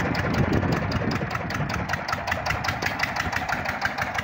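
Small four-wheel tractor's engine running steadily, with a fast, even chugging pulse.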